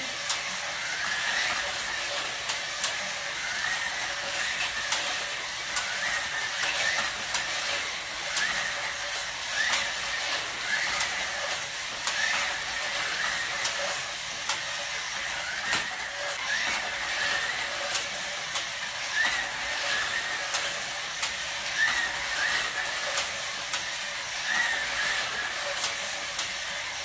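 Carrera GO 1:43 slot cars racing around a plastic track: their small electric motors give a steady whirring hiss that briefly rises and falls in pitch about once a second as the cars speed up and slow. Frequent sharp clicks run through it.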